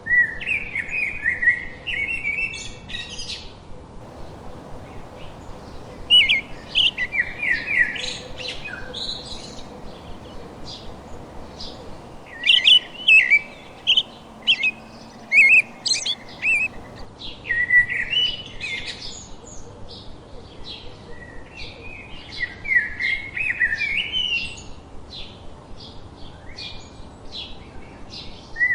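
A songbird singing a rapid, warbled phrase of two to three seconds, repeated about every five or six seconds, with faint high chips from other birds in between.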